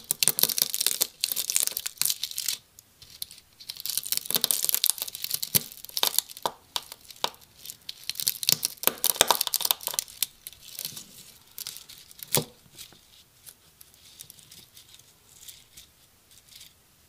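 A knife blade cutting and prying through the dry, hollow keratin segments of a rattlesnake rattle: dense scratchy crackling and tearing for about the first ten seconds, then sparser clicks with one sharp snap about twelve seconds in.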